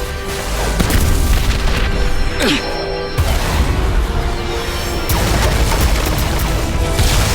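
Soundtrack music layered with cartoon fight sound effects: heavy booms and crashes, with a few sweeping whooshes.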